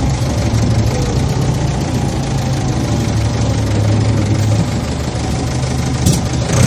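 Combine harvester engine running steadily with a low, even drone. A couple of brief clicks come about six seconds in.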